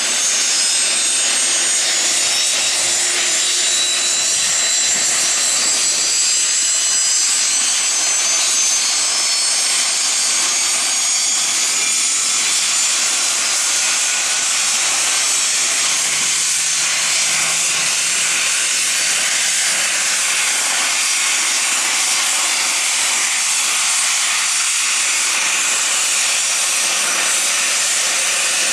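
Embraer EMB-135BJ business jet's Rolls-Royce AE 3007 turbofan engines running at idle on the ramp: a steady high turbine whine over a loud, even hiss.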